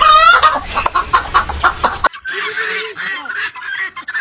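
Hens clucking with a goose honking over them, loudest at the start; about halfway through the sound cuts abruptly to kittens mewing.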